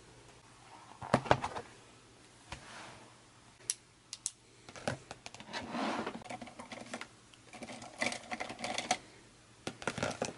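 Stationery being handled on a desk: irregular small clicks, taps and rustles as a notebook, a pen and highlighters are moved and set down, with a louder cluster of clicks about a second in.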